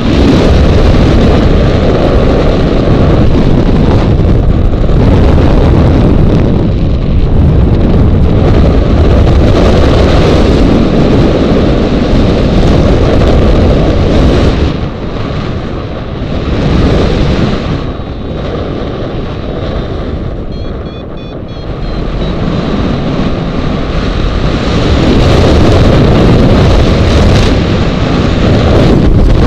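Airflow buffeting the microphone of a camera mounted on a hang glider in flight, at an airspeed of about 40 to 50 km/h. It is a loud rushing that eases for several seconds past the middle, then builds again near the end.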